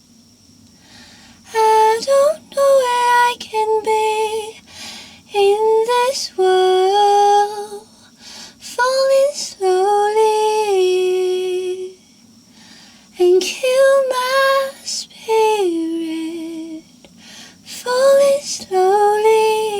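A woman's voice singing wordless melodic phrases: six lines of gliding, held notes separated by short pauses.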